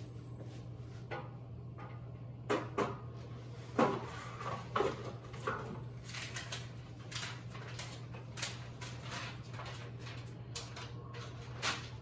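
Packaging and aquarium accessories being handled by hand: irregular rustling, clicks and light knocks of plastic and cardboard, busiest in the first half and again near the end, over a steady low hum.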